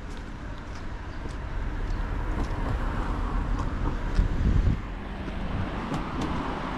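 Road traffic: a car passes close, swelling through the middle and falling away sharply a little after halfway, over a steady low rumble of traffic.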